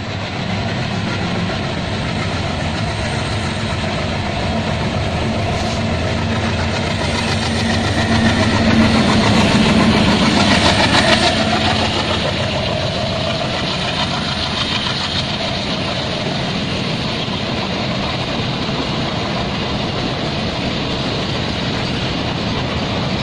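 Diesel freight train passing: the locomotive's diesel engine chugging steadily while the container wagons roll by on the rails, loudest about ten seconds in.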